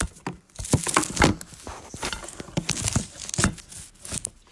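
Irregular clicks, crackles and rustling of close handling, as a strip of small plastic paint-by-number paint pots is fiddled with to pop one open.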